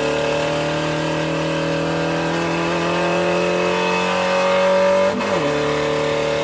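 Racing car engine sound effect: a loud, steady engine note rising slowly in pitch, dipping briefly about five seconds in, then cutting off abruptly.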